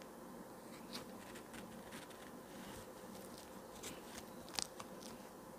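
Faint scattered clicks and light taps of small tools and watch parts being handled on a watchmaker's bench, the sharpest pair of clicks about four and a half seconds in, over a faint steady hum.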